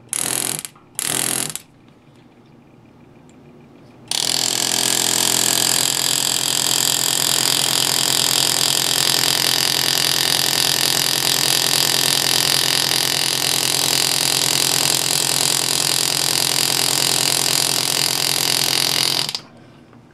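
Pneumatic air-graver engraving handpiece with a Delrin body, its piston hammering a graver through mild steel on a lighter cut: two brief bursts near the start, then a steady rapid buzz for about fifteen seconds that cuts off shortly before the end.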